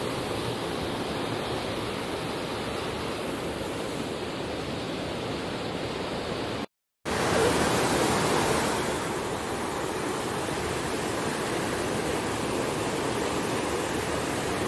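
Rain-swollen channel of water rushing and churning over rocks: a steady, even rush. It cuts out completely for a moment a little before the middle, then carries on.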